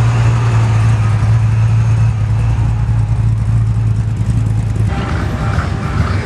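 Chevrolet Corvette C3's V8 running at low speed with a steady, deep exhaust rumble as the car cruises past and away. The rumble cuts off suddenly about five seconds in.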